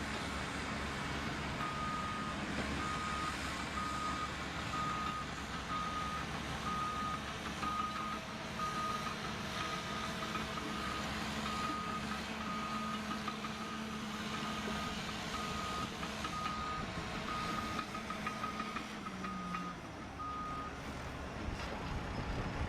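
Caterpillar D5K crawler bulldozer backing up: its backup alarm beeps one steady tone over and over, about one and a half beeps a second, over the diesel engine and track noise. Near the end the engine note drops and the beeping stops.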